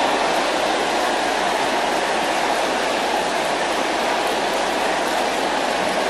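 A large congregation praying aloud all at once, many voices blending into a steady, even wash of sound with no single voice standing out.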